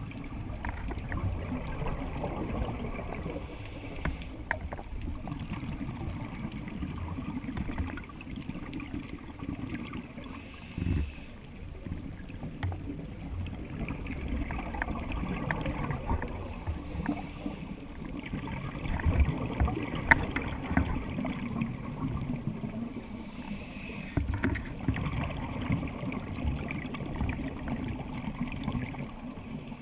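Scuba regulator breathing heard underwater: a short hiss of inhalation about every six to seven seconds, four times, with a steady rumble of bubbles and water in between.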